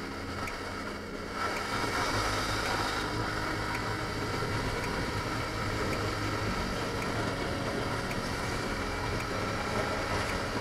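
Yamaha MT-15's 155 cc single-cylinder VVA engine running at highway cruising speed, with wind rushing over the action camera's microphone. The engine and wind get louder about a second and a half in as the bike speeds up.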